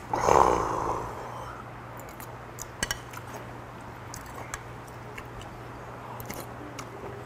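A loud breathy exhale near the start. Then light clinks of a metal spoon and ladle against ceramic bowls and the stew pot as soup is served and eaten, over a steady low hum.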